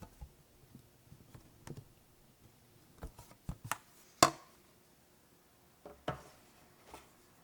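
Slime being handled in close-up, making a scatter of small sharp clicks and pops, with one louder crisp click about four seconds in.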